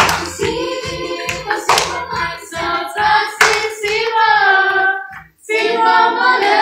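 Group singing over music with a steady beat. About five seconds in the beat stops after a brief break, and the voices carry on with long held notes.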